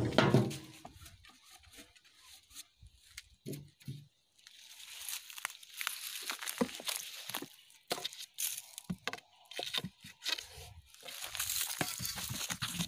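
Dry leaves and debris rustling and crunching as they are poked and scraped, with irregular clicks and knocks and a heavy thud right at the start.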